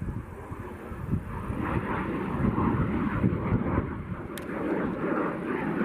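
Aero L-39 Albatros jet trainer in flight: the steady noise of its single turbofan engine, growing louder from about a second in.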